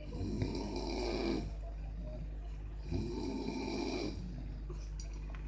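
A person snoring: two long rattling snores about three seconds apart.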